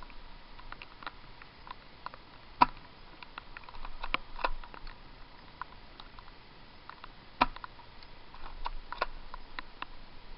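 Scattered light ticking and crackling of twigs and snow underfoot as someone moves through brush, with two sharp cracks about two and a half and seven and a half seconds in.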